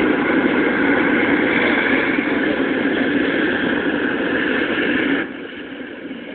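Hot air balloon's propane burner firing in a steady, loud roar, then shutting off about five seconds in, leaving a much quieter background.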